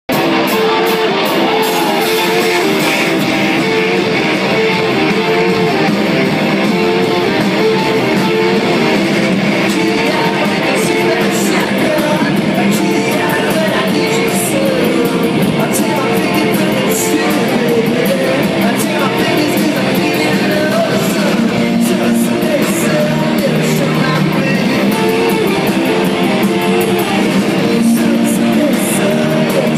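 Live rock band playing at full volume: electric guitars, drums with cymbal hits, and singing. The sound is thin in the bass.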